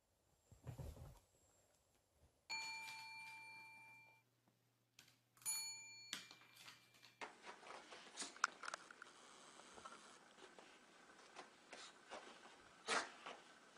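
A bell rings twice, about three seconds apart: the first ring dies away slowly and the second is cut off short. Afterwards there are only faint light taps and scratches.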